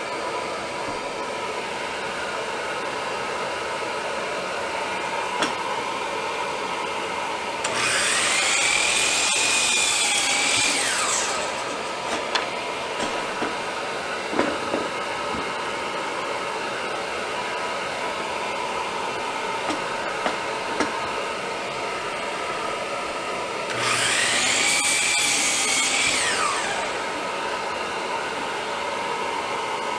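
A Hercules 12-inch sliding compound miter saw spins up, cuts through a wooden board and winds down, twice, about 8 and 24 seconds in, over the steady drone of a shop vacuum. A few light clicks fall between the cuts.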